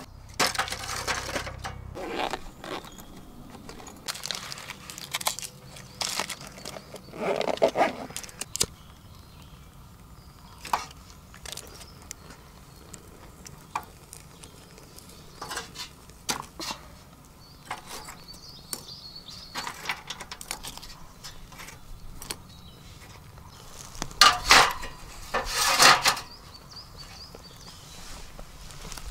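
Irregular metal clinks, knocks and scrapes as a Petromax Atago stainless-steel firepit and its grill grate are handled and set up for a fire, with louder bursts of clatter about a quarter of the way in and again near the end.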